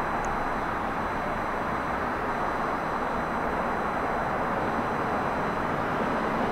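Steady rumbling noise of a distant electric subway train on open track, with no distinct pitch, growing slightly louder near the end as the train draws nearer.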